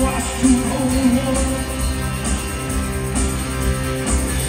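Live rock band playing a full-band passage, led by electric guitars over drums, bass and keyboards.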